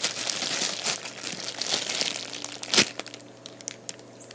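Plastic packaging crinkling as a squishy toy is handled, with one sharper crackle a little before three seconds in, then quieter.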